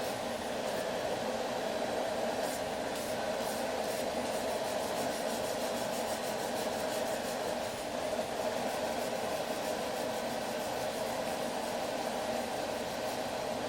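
Steady rushing roar of a blacksmith's forge running, with no hammer strikes.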